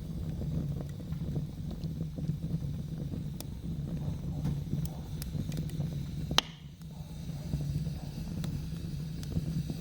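Wood fire in a fireplace catching and burning in: a steady low rushing of the flames with scattered sharp crackles and pops from the wood, one louder pop about six seconds in.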